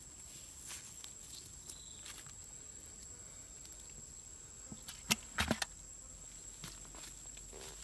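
A quick cluster of sharp knocks and slaps about five seconds in: a fish dropped into a plastic bucket, flapping against its sides. Faint rustles of the mesh net trap are heard before it.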